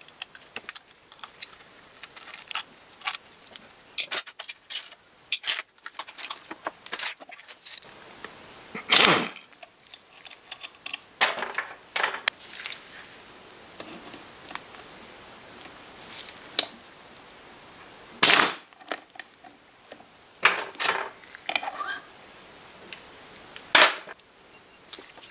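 Scattered sharp metallic clicks and clinks of tools and parts being handled while the ignition cover and rotor come off a Puch Maxi moped engine, with three louder sharp knocks spread through.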